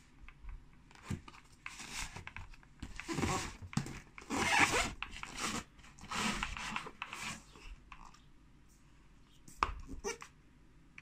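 Cardboard headphone box handled: the inner box scrapes and rustles as it slides out of its tight cardboard sleeve, in a few long scraping stretches with some knocks on the desk, the loudest about three to five seconds in.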